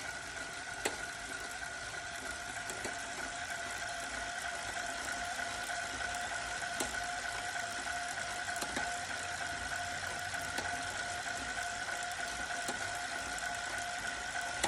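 Wahoo Kickr Core smart bike trainer running with a steady whine, with a sharp pop roughly every two seconds: the popping noise the trainer has developed.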